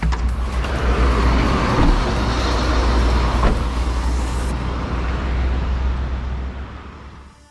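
A sharp click as the cab door is opened, then outdoor road traffic noise over a steady low rumble as the driver steps out. The sound fades away near the end.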